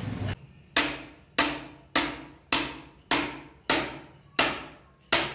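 A hammer tapping a metal chisel into a wooden clock face: eight even strikes, a little under two a second, each ringing briefly, starting a little under a second in.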